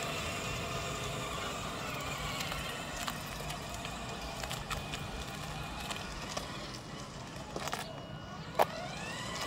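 Battery-powered children's ride-on buggy driving over rough asphalt: its electric drive motors whine at a steady, slowly drifting pitch over the crunch of its plastic wheels on grit, with a few small clicks. A short sharp squeak near the end.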